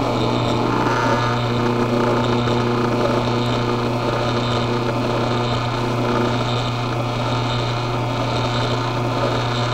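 Tribest SoloStar 4 horizontal single-auger slow juicer running empty with a steady motor hum, cutting off near the end. It measures about 70 dB on average, with slight peaks to 75 as the rotating auger bumps the juicing screen very lightly.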